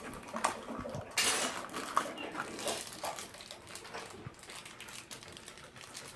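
Small plastic toy package being handled and opened: a few sharp clicks and a short tearing, crinkling rustle about a second in.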